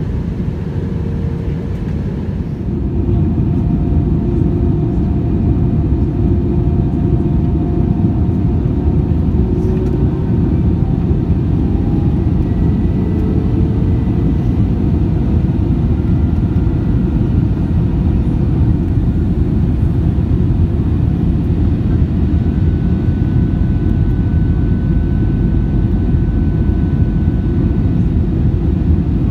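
Airbus A320-200 cabin noise heard from a window seat: a steady low rumble of the jet engines and airflow that gets louder two to three seconds in and then holds. Faint thin engine whine tones drift slightly in pitch above it.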